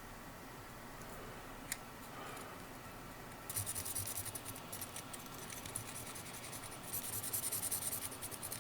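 Fibreglass pen scrubbing metal component pins clean, in fast scratchy strokes: one spell about three and a half seconds in and another near the end. A single sharp click comes a little before the first spell.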